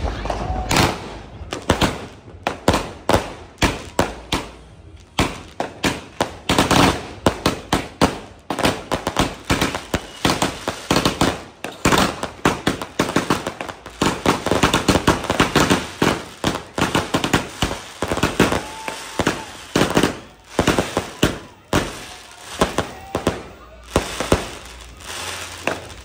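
Dragon Fireworks 'Crown of Ages' 82-shot fireworks cake firing in rapid succession: an uneven, unbroken string of launches and aerial bangs, several a second.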